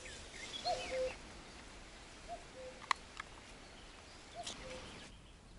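A common cuckoo calling 'cuck-oo', a higher note then a lower one, three times about every one and a half to two seconds, with small birds chirping faintly early on. A single sharp click, the loudest sound, comes about three seconds in, and there is a brief rustle near the end.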